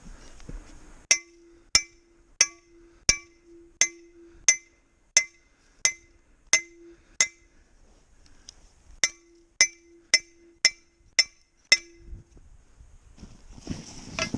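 A hammer striking a steel trap stake, metal on metal: sixteen evenly paced ringing blows in two runs, the second run slightly quicker after a short pause, as the stake is driven to anchor a foothold trap.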